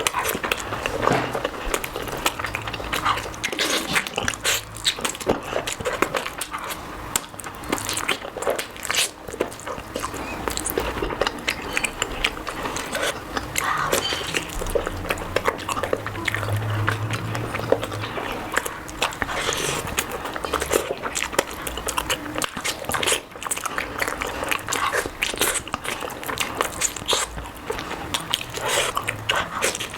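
Close-miked eating sounds: a person biting and chewing food, with a dense, irregular run of small wet mouth clicks.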